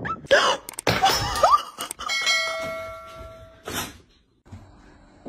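A bell-like notification chime of several steady tones rings for about a second and a half, starting about two seconds in and ending in a click. Before it come short rising cries and knocks, which are the loudest part.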